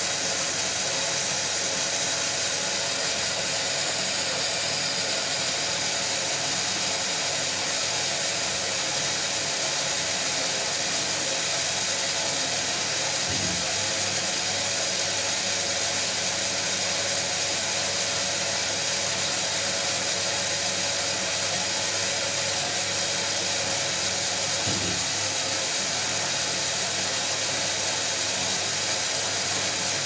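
Eudora Goldkind EU 340 front-loading washing machine running a rinse: a steady hiss of water over a low hum, with a brief low thump twice.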